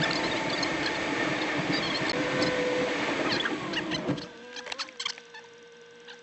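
Rain and road noise inside a moving vehicle, with scattered sharp ticks on the body. The noise cuts off abruptly about four seconds in, leaving a quiet steady engine hum and a few clicks.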